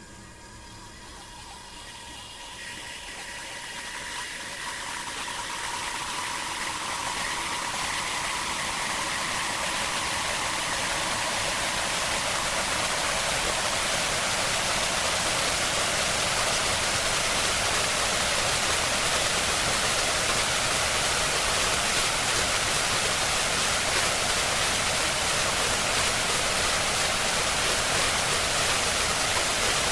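Harsh noise music: a dense, hissing wall of noise that swells from fairly quiet to loud over the first ten seconds or so, then holds steady, strongest in the highs.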